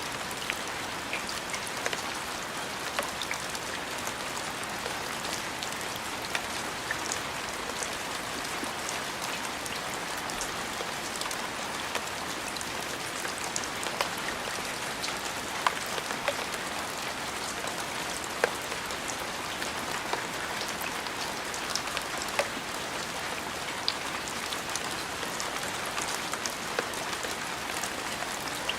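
Steady rain falling, an even hiss with scattered sharp taps of individual drops.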